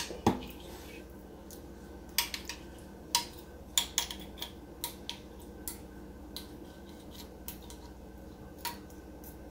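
Metal utensil clinking and scraping against a glass baking dish while stirring a wet casserole filling of cream of chicken and frozen vegetables: about ten scattered clinks, most in the first six seconds, one more near the end.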